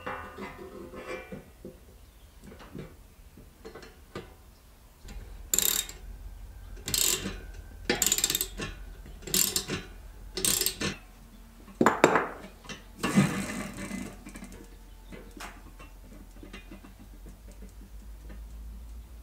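Hand tools working on a moped's handlebar mount: about five ratchet-wrench strokes roughly a second apart. These are followed by a louder metal knock and a short scrape, with light clicks of parts being handled around them.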